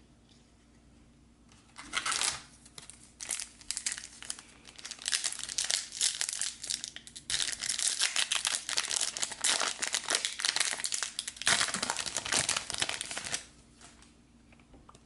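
Foil wrapper of a trading-card pack crinkling and tearing as it is opened by hand. The sound starts about two seconds in, is dense and irregular, and stops shortly before the end.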